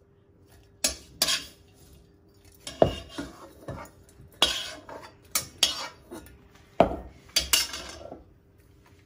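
Steel spoon scraping and clinking against a non-stick kadhai and a stainless steel mixer jar as roasted ginger, turmeric and green chillies are scooped into the jar: about a dozen sharp clinks and scrapes at irregular intervals.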